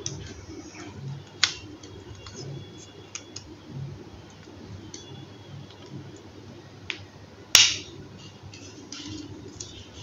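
Plastic clicks and snaps as a Nokia C1-01 feature phone's circuit board and keypad frame are pried out of its housing by hand: scattered small ticks, with two sharp snaps about a second and a half in and again about three-quarters of the way through.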